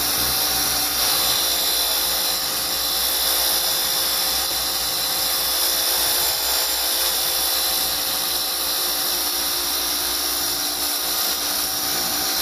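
DeWalt 20-volt cordless pressure washer running steadily: a high, even motor-and-pump whine over the hiss of the water spray.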